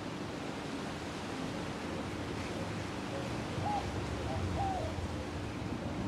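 1988 TAT model CFA2PC ceiling fan running steadily: an even whoosh of air from the spinning blades with a faint steady motor hum.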